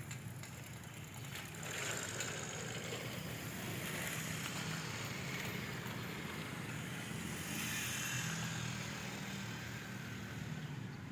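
Road traffic going by: engine rumble and tyre noise from passing vehicles, swelling as one passes about two seconds in and again about eight seconds in. No horn sounds.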